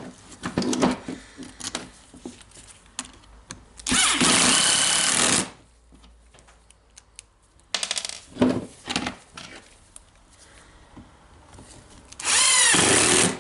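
Electric screwdriver running in two short bursts, one about four seconds in and one near the end, driving the screws into the angle grinder's housing. Small clicks and knocks of parts being handled come between the bursts.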